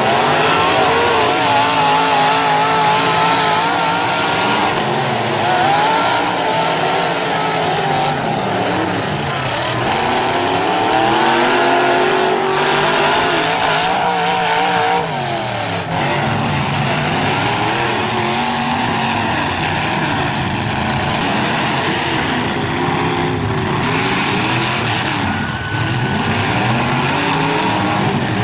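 Several demolition derby cars' engines revving at once, their pitch rising and falling as the drivers throttle up and back off, over a steady noisy din.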